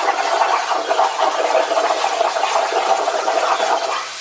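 Langmuir CNC plasma table cutting steel plate: the plasma arc's steady hiss, stopping near the end. The torch is running fast, at settings meant for thinner metal, so it does not cut all the way through the quarter-inch plate.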